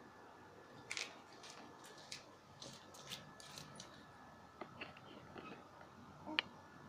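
Faint scattered clicks and light taps, a few each second in places, with one louder sharp click near the end, over a quiet room with a faint steady high hum.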